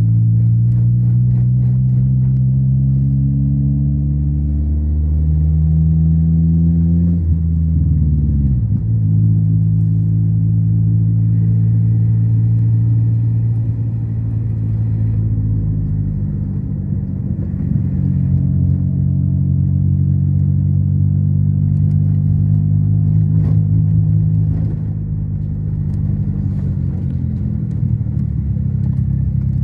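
Car engine running while driving, with road noise. The engine pitch climbs steadily as it accelerates, drops about eight seconds in at a gear change, then holds steady at cruising speed.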